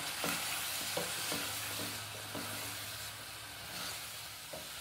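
Chicken pieces and chopped tomatoes sizzling in a pot as a spatula stirs them, with a few light scrapes and knocks of the spatula against the pot. The tomatoes are frying down until soft.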